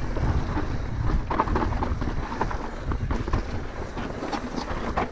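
Wind buffeting an action camera's microphone as a mountain bike rolls down a rocky dirt trail, with scattered knocks and rattles from the tyres and bike over the rocks. The noise eases off near the end as the bike slows.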